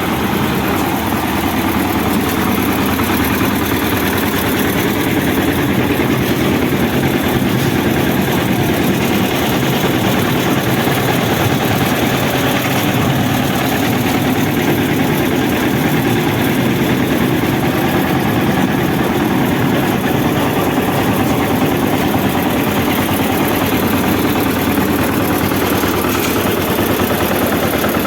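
Concrete mixer machine running steadily, its engine and turning drum making a loud, unbroken mechanical din.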